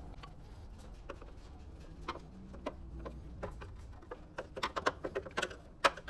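Metal hand tool clicking and scraping in the access hole on the door edge of a Fiat Doblò, working the outside handle's retaining screw. Scattered ticks, then a quick run of sharp clicks in the last two seconds, the loudest just before the end, over a low hum that fades about four seconds in.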